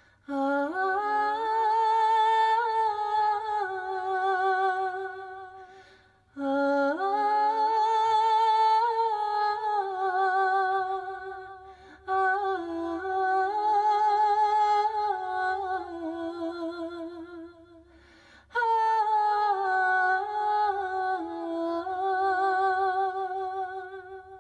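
A solo female voice singing a slow, unaccompanied melody with vibrato. It comes in four long phrases, each opening with a rising slide.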